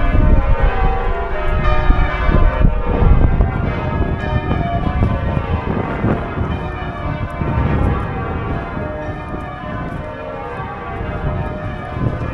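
Church bells of York Minster ringing, many bells struck in quick succession with their tones overlapping; the ringing eases slightly in loudness in the second half.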